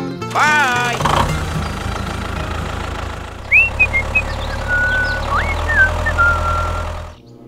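Tractor engine running steadily, laid over the toy tractor, cutting off sharply near the end. A brief warbling tone comes just before it starts, and a few high chirps sound over the engine midway.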